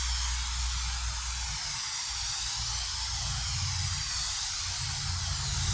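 Dupli-Color aerosol spray paint can spraying continuously, a steady hiss, as a coat of automotive base colour goes on in overlapping passes.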